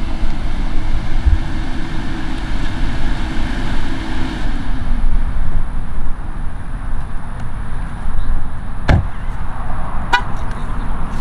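A Nissan sedan rolls up slowly and stops, with a steady low rumble under it. About nine seconds in a car door shuts with a thud, and a second later the car horn gives a short chirp, the lock signal from the key fob.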